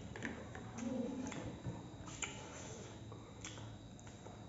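A person eating mutton curry and rice by hand: quiet chewing and mouth sounds with scattered small clicks.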